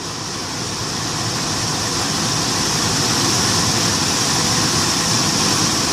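Infiniti M45 HVAC blower motor and fan spinning up to maximum speed, a loud steady rush of air that rises over the first few seconds and then holds. This is the worn original blower that was making noise in the car.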